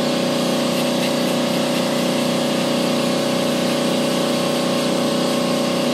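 Cyclone E100 LTC benchtop bead blast cabinet in use: a steady, loud hiss of the blast gun with a steady pitched hum underneath. The replacement gun is now moving media consistently.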